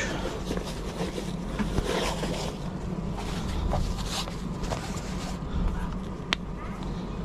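Handling of fabric storage bags: rustling cloth and light scrapes, with a single sharp click about six seconds in as wooden chopsticks are pulled out, over a steady low hum.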